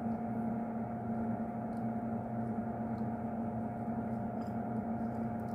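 Steady electrical hum with a faint hiss, and a few faint light ticks.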